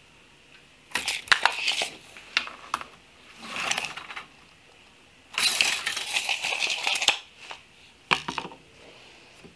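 Steel tape measure and pine boards being handled on a wooden workbench: four bursts of clicking, rattling and scraping, the longest just past halfway.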